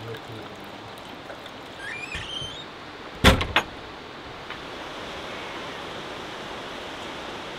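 Steady rush of running water, with a few short, high, rising chirps about two seconds in and two sharp, loud knocks in quick succession a little after three seconds.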